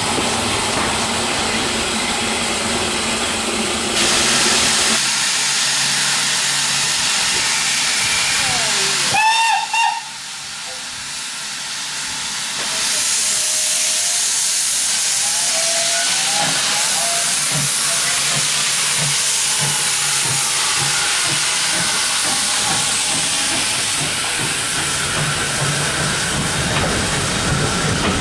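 Steam hissing from an SE&CR H class tank locomotive, with a brief steam whistle about nine seconds in.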